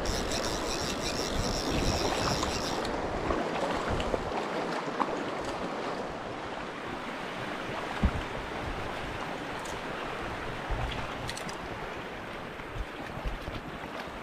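Creek water flowing, a steady rushing hiss. A thin high buzz runs through the first few seconds, and a single soft knock comes about 8 seconds in.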